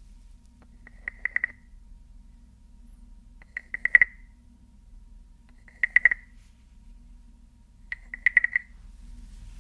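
Four short clusters of quick taps on a small object that rings with one high tone, spaced about two seconds apart, the second and third the loudest.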